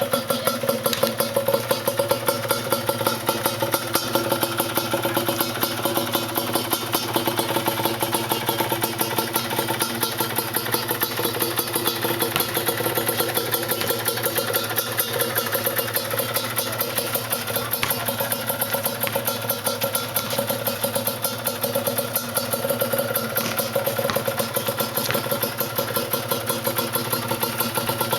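Yamaha DT 125's single-cylinder two-stroke engine idling steadily.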